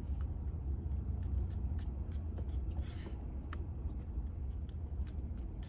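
Spoon stirring and scraping yogurt in a plastic cup: faint, scattered small clicks and scrapes over a steady low hum.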